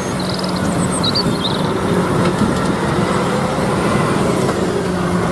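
Pressure washer running steadily: an even rushing hiss of spray over a constant motor hum.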